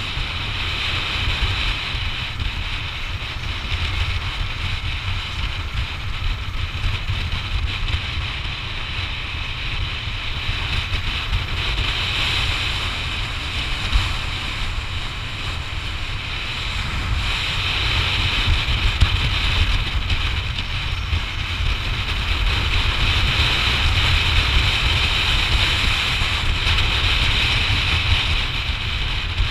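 Wind rush buffeting the microphone of a camera riding on a moving Yamaha NMAX scooter: a steady low rumble under a hiss that swells and eases, with one short tick about halfway through.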